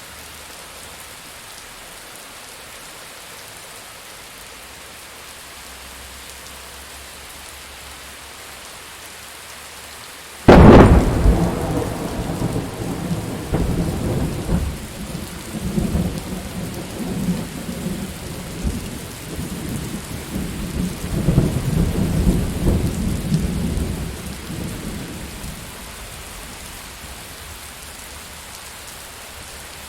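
Steady rain with a sudden, close thunderclap about a third of the way in. It turns into rolling thunder that swells twice more and dies away, leaving only the rain.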